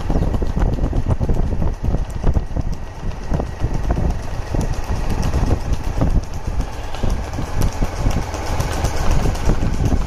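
Horses' hooves clattering on an asphalt road in a quick, irregular stream of clicks, over a steady low rumble of a vehicle engine and wind.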